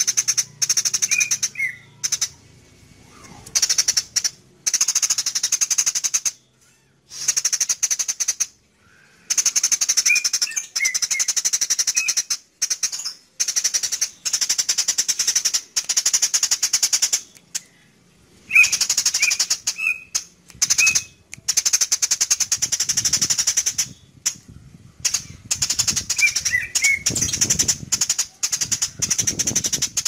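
Eurasian tree sparrow in full chattering song: long bouts of rapid, high, rattling notes broken by short pauses, with a few clearer chirps in between.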